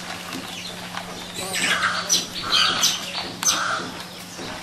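Birds calling in a run of short chirps through the middle, with a couple of sharp clicks among them.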